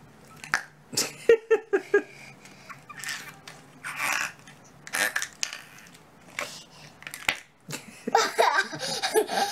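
Slime pressed into a plastic cup with the fingers, trapped air escaping in short squelching, fart-like noises: a quick run about a second in, more here and there, and a longer run near the end.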